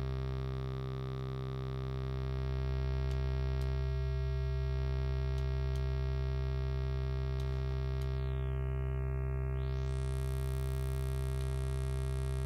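Arturia Pigments 3's additive Harmonic engine holding one low synthesizer note, a dense stack of many partials. About four seconds in, the middle partials briefly drop away, and from about eight seconds the top end brightens as the spectrum is morphed.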